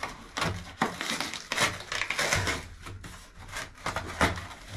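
Packing tape being picked at and torn off a cardboard box by hand, in a run of short irregular rips and scrapes, with the cardboard crinkling and knocking.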